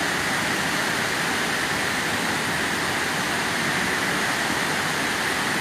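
A tall waterfall's falling water: a steady, even rush of noise that does not change.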